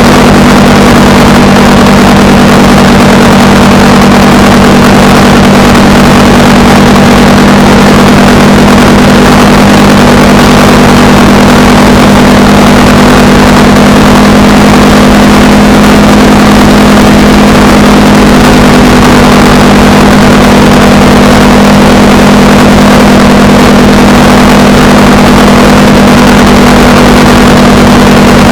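Honda Rebel 300's single-cylinder engine running at a steady cruise, with a constant pitch and no shifting or revving, under a loud rush of wind noise.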